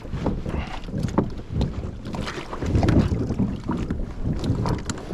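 Kayak paddling: water noise and scattered knocks of the paddle and hull, with wind buffeting the microphone in an uneven low rumble that is loudest about three seconds in.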